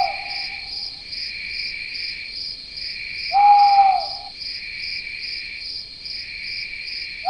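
Cricket-like insect chorus trilling in steady, regular pulses, with a short clear single-pitched hooting call repeating about every four seconds.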